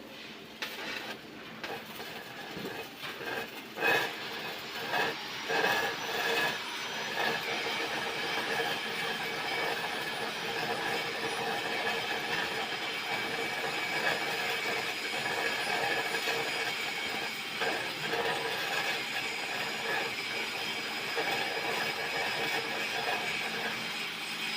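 Stick welding arc of a 2.5 mm E6011 electrode running a root pass on pipe: sputtering and cracking unevenly for the first several seconds after the arc is struck, then settling into a steady, dense crackling hiss.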